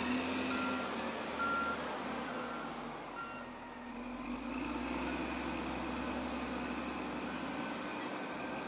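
Wheel loader's diesel engine running with its reversing alarm beeping about once a second; the beeps stop a little over three seconds in. After that the engine gets louder as the loader raises a bale on its arms.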